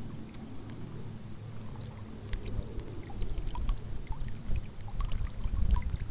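Lake water lapping and sloshing around a person wading waist-deep, over a low wind rumble on the microphone. Small splashes and drips come from about two seconds in.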